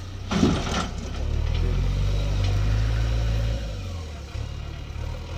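Heavy diesel engine running, its engine note rising and holding for a couple of seconds before easing back. A short loud burst comes about half a second in.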